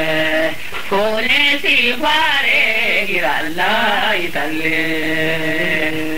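A solo voice chanting a wavering, melismatic melody, settling about four seconds in onto a long, steady held note.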